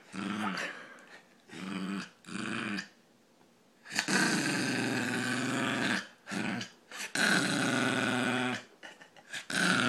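A Brussels pug making a funny vocal noise: three short pitched sounds, then a drawn-out one of about two seconds that starts four seconds in and another of about a second and a half some seven seconds in.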